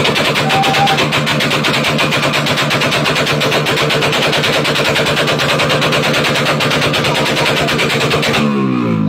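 Motorcycle engine with an open racing exhaust revved hard on a stand, a loud, rapid, steady pulsing at high revs. About eight and a half seconds in, the throttle is let off and the revs fall away.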